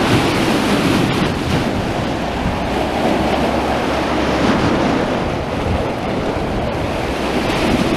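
Sea waves breaking and washing on the beach, a steady surf noise, with the breeze rumbling on the microphone.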